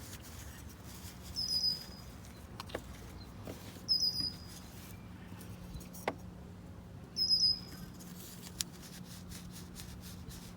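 A bird chirps three times, a short high call every few seconds. A few light clicks come between the calls.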